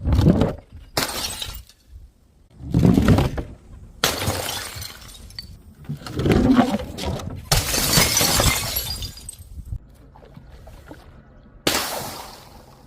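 Glass bottles shattering one after another: about seven loud crashes at irregular intervals, each trailing off in scattering glass.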